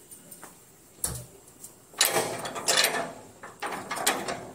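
Gate rattling and scraping: one knock about a second in, then three or four rough bursts of rattling. It is the sound used to call the cats, which come when they hear it.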